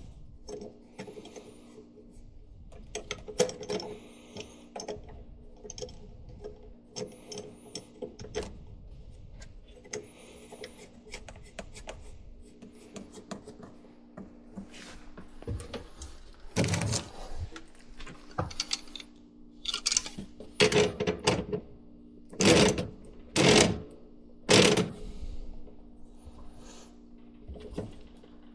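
Installation work: clicks, knocks and rattling of tools and parts being handled, over a steady low hum, with several short, loud bursts of noise in the last third.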